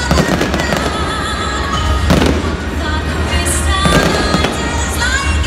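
Aerial fireworks shells bursting, three loud bangs about two seconds apart, over music from the ballpark's sound system.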